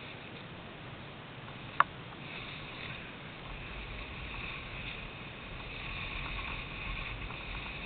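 Snowboard sliding over snow: a steady scraping hiss that starts about two seconds in and builds as the rider gets moving, with a low rumble joining soon after. A single sharp click comes just before the sliding starts.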